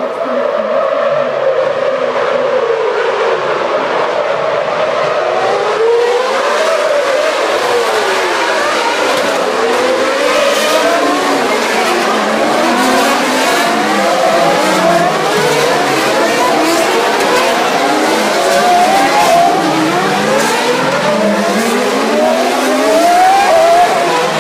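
A stream of 2012 Formula One cars with 2.4-litre V8 engines braking into and accelerating out of a slow hairpin: many high engines overlapping, their pitch falling as they slow and downshift, then rising again as each pulls away. The sound swells in about the first second and stays loud throughout as car after car goes through.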